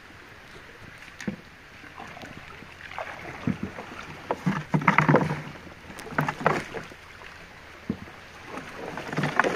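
Water splashing and sloshing against a small boat: a quiet start, then an irregular run of splashes from about three seconds in, loudest around the middle.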